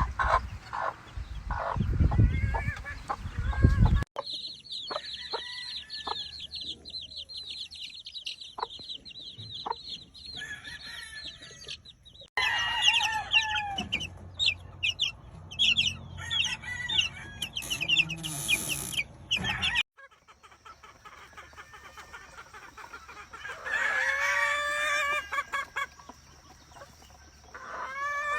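Gamefowl chickens clucking and calling across several abruptly cut segments, with a rooster crowing once about three-quarters of the way through.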